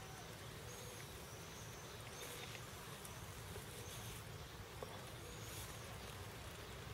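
Faint outdoor ambience: a low steady hum with short high chirps, like small birds, about once a second.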